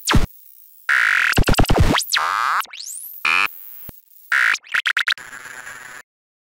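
Synthesized glitch sound effects of an animated logo sting: tones sweeping down and up, with rapid stuttering bursts. It ends in a short hiss that cuts off suddenly near the end.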